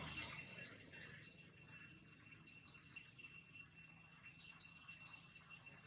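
A bird chirping in three quick bursts of four to six short, high notes, over a steady high-pitched drone in the background.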